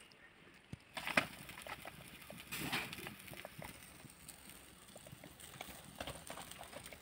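Marinated chicken sizzling on a wire grate over a charcoal fire, with fat crackling and popping as it drips onto the glowing embers; the sizzle starts about a second in.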